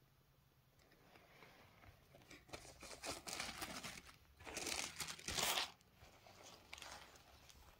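Tissue paper wrapping rustling and crinkling as it is pulled open at its sticker seal and folded back. The rustling starts softly, grows louder a few seconds in, peaks about five seconds in, then settles to lighter handling.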